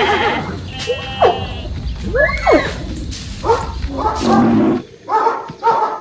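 A string of animal calls: a horse's whinny at the start, then several separate calls that sweep up and down in pitch, and near the end a quick series of short calls about two a second.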